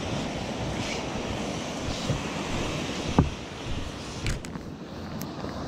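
Small ocean waves breaking and washing up a sandy beach, a steady hiss of surf. A single brief thump about three seconds in.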